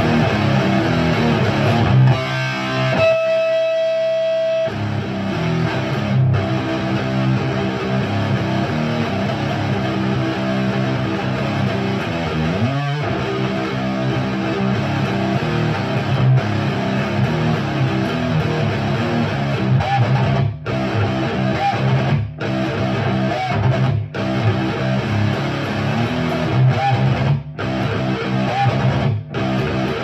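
Electric guitar with Bare Knuckle Mississippi Queen P90 pickups, played through a Diezel Hagen tube head with JJ KT77 power tubes into a Marshall Mode Four 4x12 cabinet with Celestion G12-K100 speakers. It plays continuous riffs, with a single note held for a second or two about three seconds in and a pitch slide about halfway through. Near the end the playing breaks off briefly between phrases several times.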